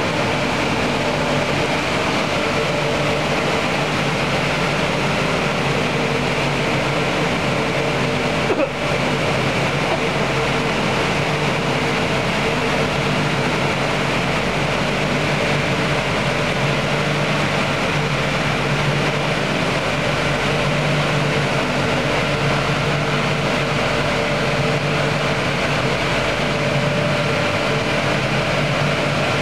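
Automatic battery washing and drying machine running steadily: water spraying inside its enclosed wash cabinets over the hum of its blower fans and motors, with one brief click about eight seconds in.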